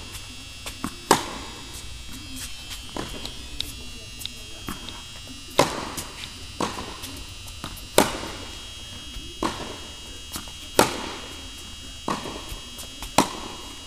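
Tennis racket striking the ball on forehands: five loud hits about two and a half seconds apart, each with a short echo off the indoor court, and softer ball bounces between them. A steady high-pitched hum runs underneath.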